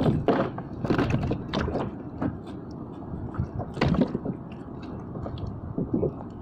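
Irregular knocks, clatter and scraping of fishing gear being handled on a kayak, with the loudest knocks about one second and about four seconds in.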